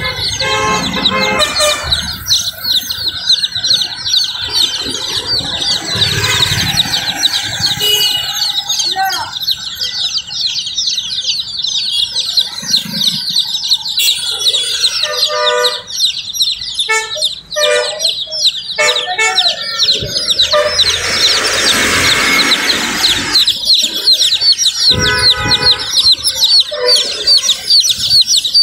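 Dozens of baby chicks peeping without pause, a dense chorus of many overlapping high cheeps.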